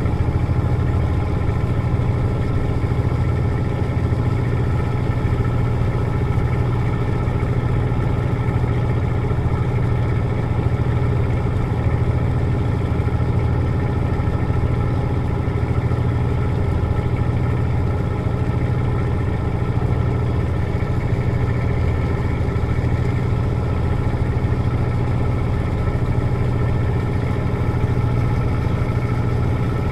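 A boat's engine running steadily under way, a constant low drone with no change in speed.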